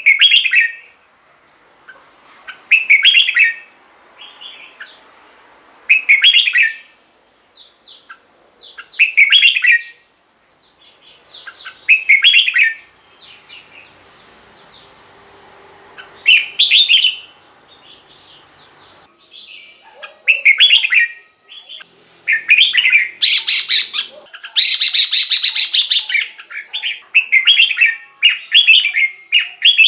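Red-whiskered bulbul singing: short song phrases about every three seconds, then coming faster and almost without pause in the last third, with one longer, louder phrase. A faint steady high-pitched tone runs underneath.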